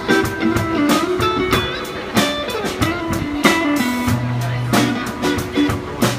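Electric guitar and drum kit jamming a blues: guitar lines with held and bent notes over a steady drum beat with cymbal hits.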